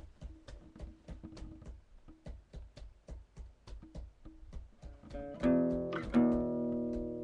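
Acoustic guitar played in a steady rhythm of short, clipped notes, about four a second, then about five and a half seconds in it rings out louder with sustained chords.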